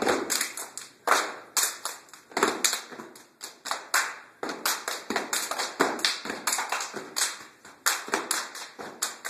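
A group of steppers doing body percussion: hand claps and foot stomps on a hard floor in a rhythmic step routine.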